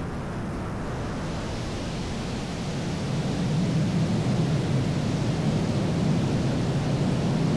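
Cessna Citation X business jet heard from the cockpit during takeoff and climb: a steady deep rush of jet engine and airflow noise, growing louder about three seconds in.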